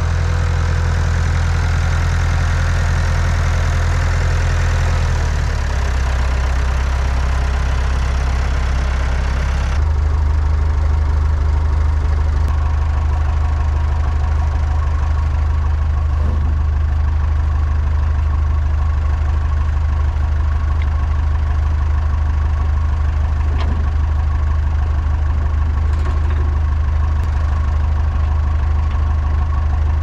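Tractor engine running as it backs up, its note dropping about five seconds in, then idling steadily while the snowblower is hitched on, with a few faint metal clinks from the hitch.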